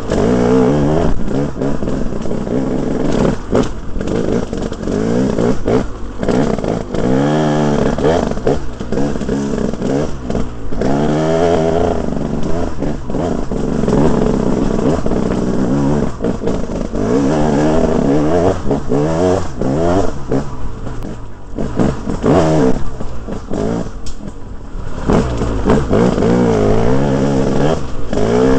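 2011 KTM 300 two-stroke single-cylinder motorcycle engine running and being revved over and over, its pitch climbing sharply and dropping back every couple of seconds.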